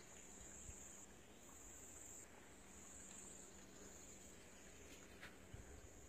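Faint chorus of insects, a high buzzing trill that swells and fades in pulses about a second long, with a few soft low thumps near the end.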